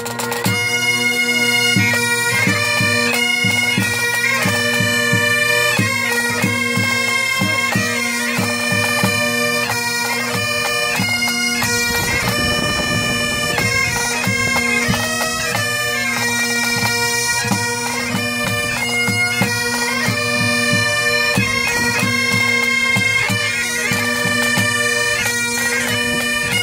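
Pipe band of Great Highland bagpipes playing a fast tune over their steady drones, with snare and tenor drums beating time.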